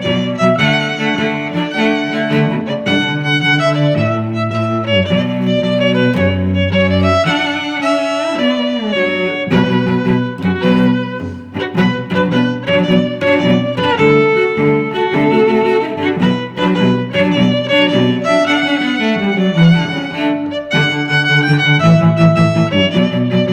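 Background music led by bowed strings: violin and cello playing sustained, shifting notes.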